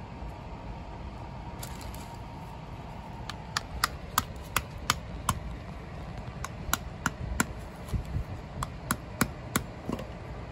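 Claw hammer tapping a hard-shelled cinnamon apple (Pouteria hypoglauca) seed on a carpet mat to crack its shell. The light, sharp taps begin a few seconds in and come about three a second in short runs, with brief pauses between runs.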